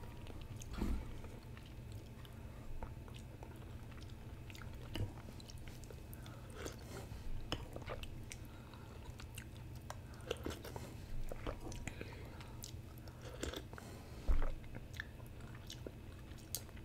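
Chewing and small mouth sounds of someone eating noodles, with scattered light clicks of wooden chopsticks and a spoon against a porcelain bowl. One louder thump comes about fourteen seconds in.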